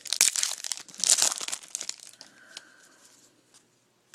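A trading-card pack wrapper being torn open and crinkled in quick rustling bursts; the rustling dies down after about two seconds.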